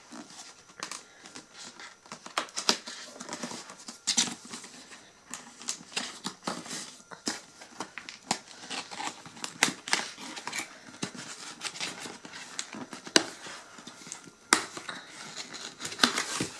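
Cardboard box being opened by hand, with irregular scratching, tapping and clicking of fingers and flaps against the card.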